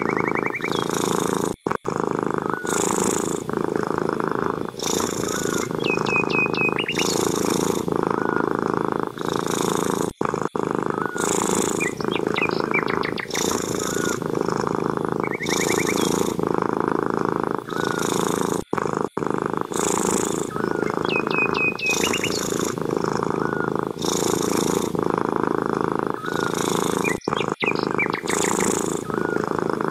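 Domestic cat purring loudly and steadily, the purr changing with each in- and out-breath about once a second. A few brief high chirping trills come through several times.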